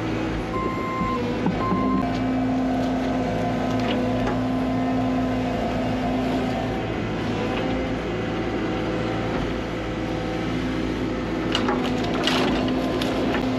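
Excavator engine running steadily under load as the machine works at a tree stump. Near the end a few sharp cracks of wood and roots breaking.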